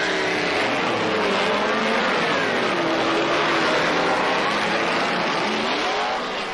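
Many racing car engines revving and accelerating together as the field pulls away at the start of the race, their pitches rising and falling over one another.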